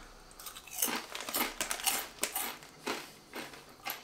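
Foil-lined potato chip bag crinkling as it is handled and lifted, in irregular bursts of rustling.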